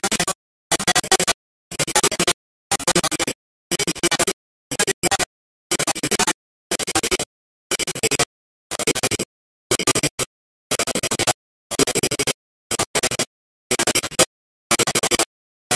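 Glitched, broken-up audio: harsh, scratchy bursts of garbled sound, each about half a second long, come roughly once a second, and each is cut off into dead silence.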